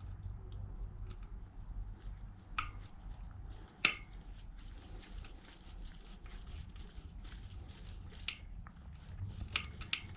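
Light clicks and taps of hands working tools on a motorcycle wheel, with one sharper knock about four seconds in, over a low steady hum.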